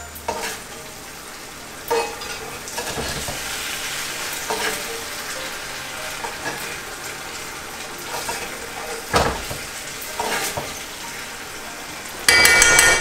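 Salmon frying in a thickening sauce in a skillet, sizzling steadily as it is stirred and basted with a spoon, with a few knocks of the spoon against the pan. A sudden loud burst of noise, under a second long, comes near the end.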